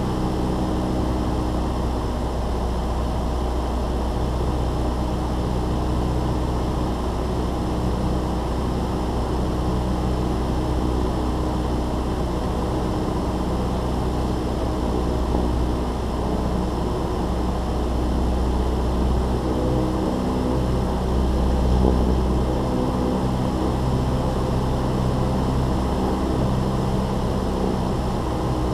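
Cessna 172's piston engine and propeller running steadily in flight, over a heavy low wind rumble on the microphone.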